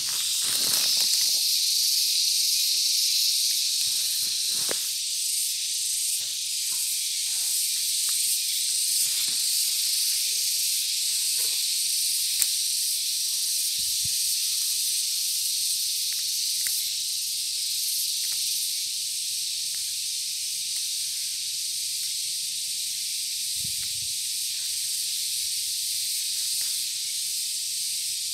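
A steady, high, hissing drone of insects in the vegetation around a rice field, with light rustles and ticks of leaves being brushed by hand.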